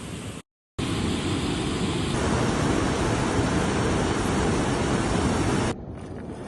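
Steady rushing of flowing river water, cut off by a brief dropout about half a second in. Near the end it drops to a quieter rush.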